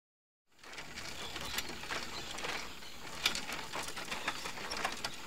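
Steady background hiss with scattered short chirps and clicks, starting about half a second in.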